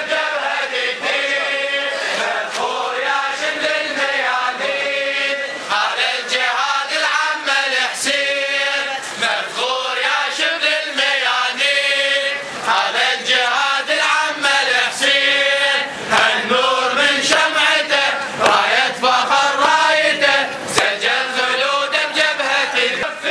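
A Shia Muharram mourning chant (latmiya): men's voices chanting together in a sustained, melodic line. Sharp strikes mark a regular beat under the voices.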